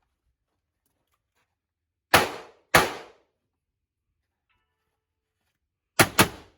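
Four gunshots from a firearm on a 3-gun stage: a pair about two seconds in, then a faster double tap near the end, each with a short ringing decay.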